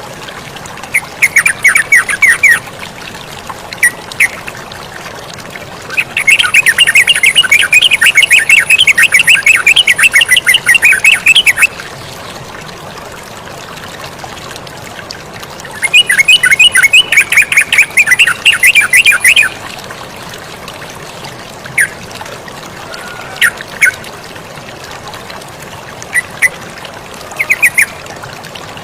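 Yellow-vented bulbul song: bouts of rapid, repeated chattering notes, with a long run about six seconds in and another about sixteen seconds in, and short calls between them. Underneath is the steady sound of running water.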